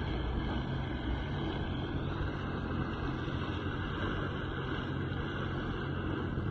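Jet ski engine running steadily, its jet churning the water.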